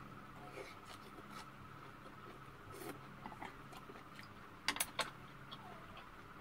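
Eating sounds: faint chewing and light clicks of wooden chopsticks and a wooden spoon against stainless steel bowls, with three sharp clicks in quick succession about two-thirds of the way in, over a faint steady hum.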